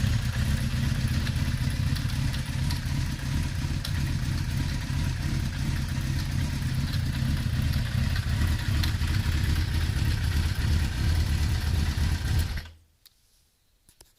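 Kawasaki GPZ900R's inline-four engine idling, with an occasional light clatter from the engine whose cause the owner cannot identify. The engine sound cuts off suddenly near the end.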